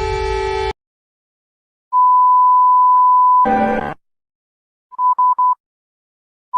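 Electronic alert beep tones. A lower, many-toned alarm sound stops abruptly under a second in. After a pause, a steady high beep holds for about a second and a half and is cut off by a short buzz. Then come three quick beeps at the same pitch.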